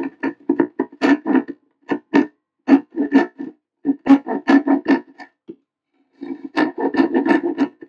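Handsaw cutting through a thin cabinet wall panel in quick back-and-forth strokes, about three a second, each stroke ringing at the same pitch. The sawing pauses briefly about five and a half seconds in, then resumes.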